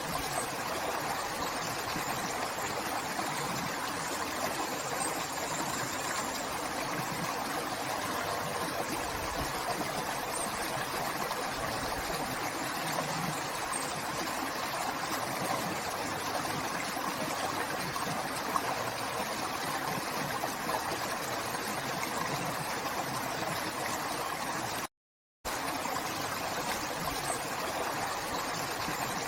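River water flowing steadily, an even rush of water. It cuts out to silence for about half a second near the end.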